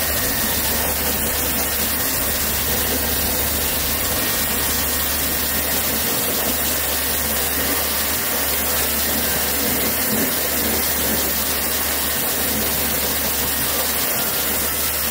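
Water running steadily from a tap or shower, an even rushing hiss with no break.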